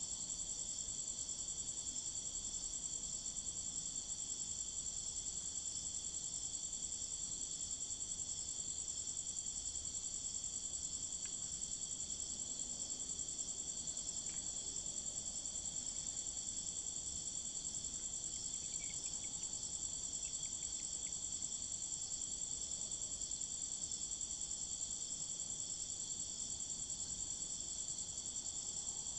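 Insects trilling in a steady, high-pitched chorus that never lets up, with a few faint short chirps about two-thirds of the way through.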